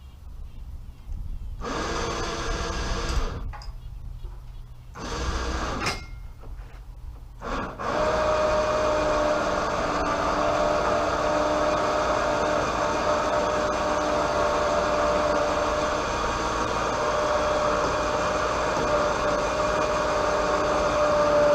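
A small motor with a steady whine, run in two short bursts and then steadily for about fifteen seconds without changing pitch.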